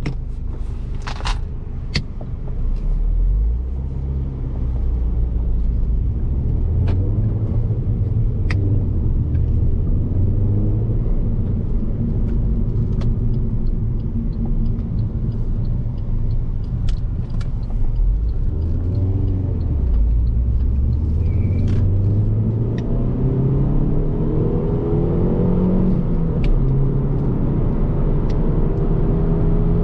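Alfa Romeo Giulietta 1.75 TBi's turbocharged four-cylinder petrol engine heard from inside the cabin while accelerating through a manual gearbox. The engine note climbs in pitch, drops back at each gear change and climbs again, over steady tyre and road noise.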